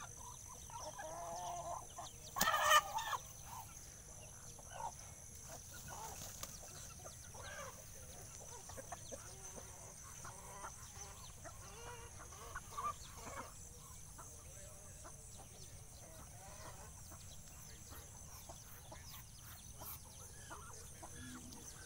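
Free-range chickens clucking and calling, with one louder, short chicken call about two and a half seconds in and scattered short clucks through the rest.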